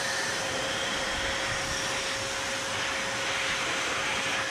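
Homemade propane-fuelled gas turbine jet engine, built around a turbocharger, running steadily: an even rushing noise with a steady whine over it.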